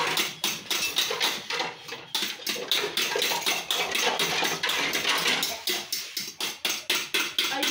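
A spoon beating egg batter in a bowl for torrejas, clicking against the bowl in a quick, even rhythm of about four to five strokes a second.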